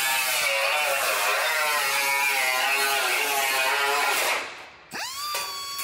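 Air cut-off tool with a thin abrasive wheel slicing through a new sheet-steel rocker panel section: a loud whine that wavers in pitch as the wheel bites, with a hiss of grinding. Past four seconds it lets off briefly, then spins up again with a quickly rising whine that settles on one steady note before cutting resumes.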